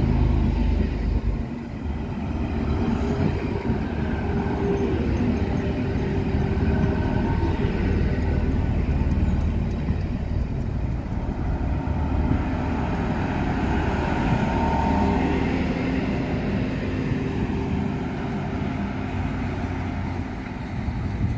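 A DSB IC3 diesel multiple unit running along the platform, its cars rolling by and then moving away. The sound is a steady rumble of wheels on rail and diesel engines.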